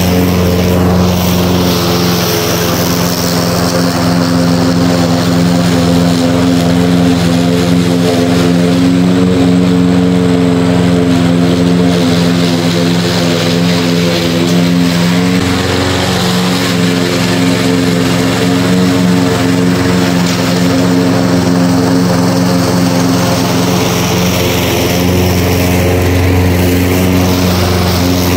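Walk-behind gas lawn mower's small engine running steadily while cutting grass, its pitch shifting slightly about halfway through and again near the end.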